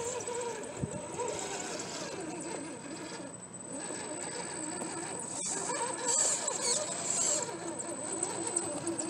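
Electric motor and geared drivetrain of a scale RC crawler truck whining as it crawls, the whine rising and falling in pitch with the throttle.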